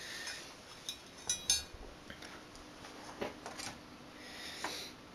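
Parts of a projection CRT assembly being handled: a few light knocks and clinks of hard parts, one with a short ring about a second and a half in, over soft handling rustle.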